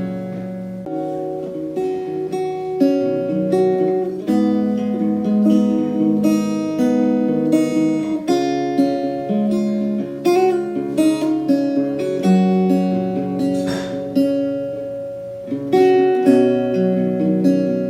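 Background music played on acoustic guitar, plucked and strummed chords with notes ringing on.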